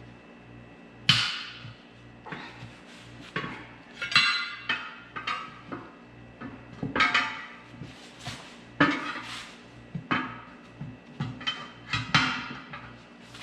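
Irregular series of sharp metallic clanks, each with a short ring, about a dozen in all: steel tools striking and levering against a tractor wheel rim as a tire is worked onto it.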